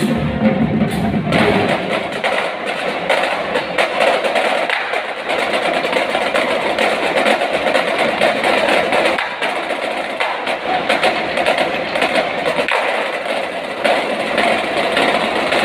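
Marching drumline of snare drums, tenor drums and bass drums playing a fast percussion feature, a dense run of rapid stick strokes. The lower band sound drops away about a second and a half in, leaving mostly the drums.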